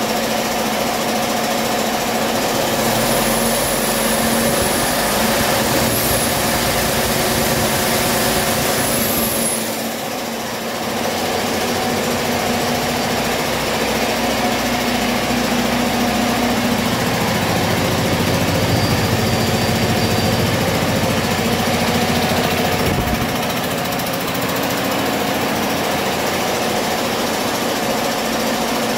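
2020 Detroit Diesel DD16 inline-six heavy-truck diesel engine running steadily on a test stand, a used engine that the seller says runs excellent. A faint high whistle rides over it in the first third, and the low engine note grows fuller for a few seconds past the middle.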